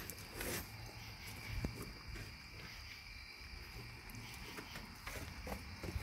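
Faint steady chirring of night insects, a cricket-like chorus, with a few soft knocks and rustles.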